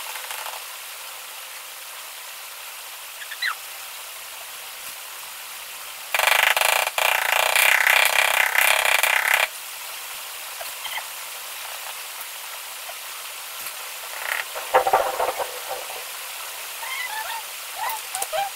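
Green rubber mallet tapping a large ceramic floor tile to bed it level in mortar, with a few dull knocks about two thirds of the way in. A loud rough noise lasts about three seconds from just after a third of the way in.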